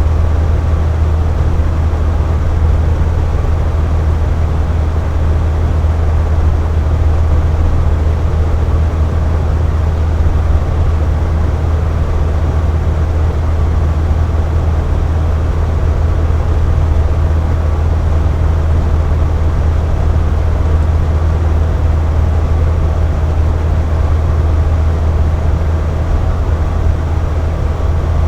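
Box fan running steadily: an even, deep whoosh with a few faint steady tones above it.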